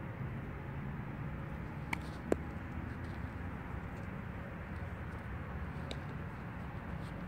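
A slowpitch softball bat striking a ball: a faint click, then a single sharp crack about two seconds in, over a steady low outdoor rumble.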